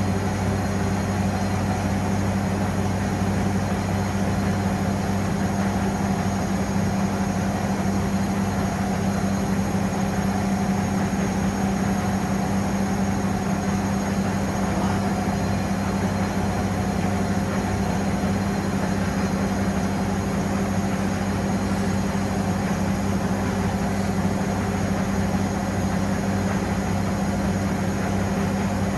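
Pasvens Cottons 40 washing machine running, a steady low hum that does not change.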